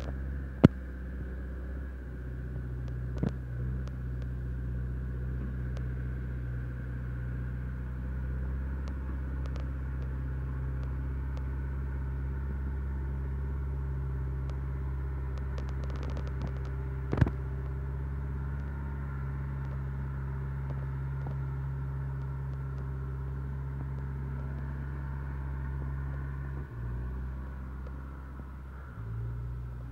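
A vehicle engine idling steadily, its low hum even throughout, with its note briefly dipping near the end. A sharp click about 17 seconds in.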